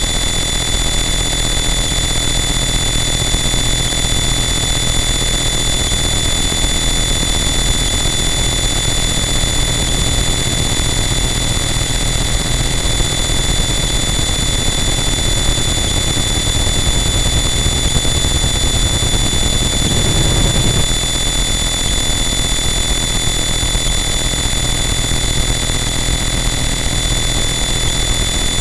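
Harsh noise wall: a loud, dense, unchanging wall of distorted electronic static with steady high whining tones running through it. A brief low rumble swells up about twenty seconds in.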